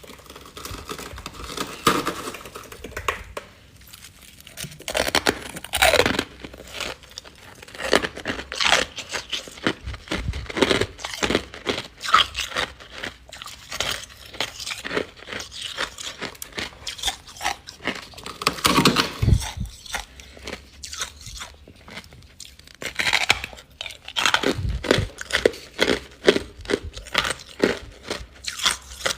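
Close-miked biting and chewing of refrozen freezer frost: crisp, irregular crunching and crackling, with a louder bite every few seconds.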